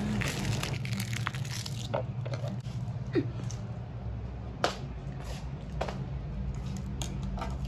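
Handling noise from a phone being picked up and carried: scattered clicks and short crackles over a steady low hum.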